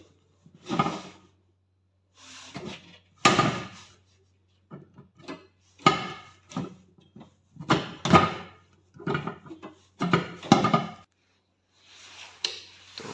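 Small 21-volt AC fan motor from an LG convection microwave humming steadily, with irregular clunks and scrapes over it; the hum cuts off about eleven seconds in. The repairer blames the oven's noise on a faulty motor.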